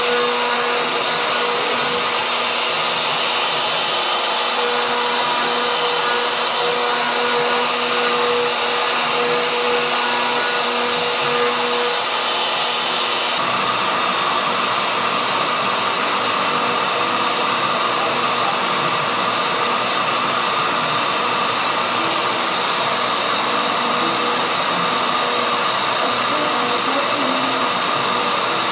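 CNC router spindle running as its bit carves into a wooden board: a steady whine over a rushing noise. Its pitch shifts about halfway through.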